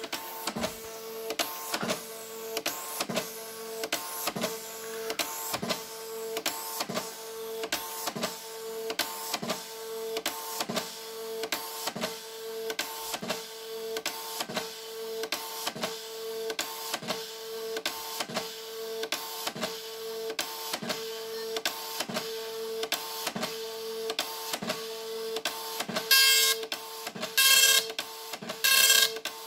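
Epson dot-matrix printer running: the print-head carriage shuttles back and forth with a steady hum and a regular clack about one and a half times a second. Near the end come three loud, buzzy rasps of about half a second each as the print head strikes the paper and prints a line.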